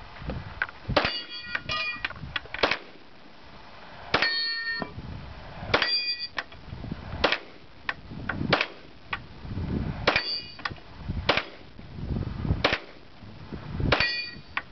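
A slow string of pistol shots, about one a second, fired at steel targets. Several shots are followed by the ringing clang of a steel plate being hit.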